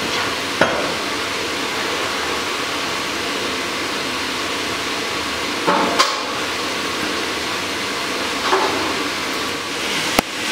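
A few scattered metallic clanks of a steel bar being handled on a striking anvil, over a steady rushing background noise.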